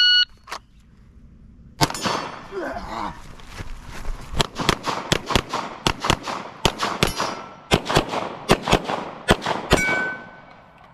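A shot timer's short electronic beep starts a timed shooting run. About two seconds later a gun fires a long string of shots at an uneven pace for about eight seconds.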